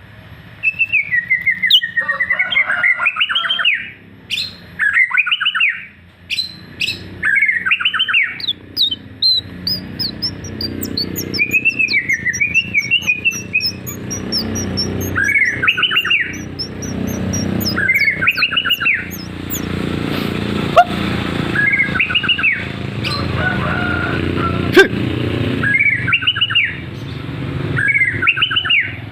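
White-rumped shama (murai batu) singing, repeating a looping whistled phrase about every two seconds, with quick high twitters in the first half. A low steady rumble sits underneath from about a third of the way in.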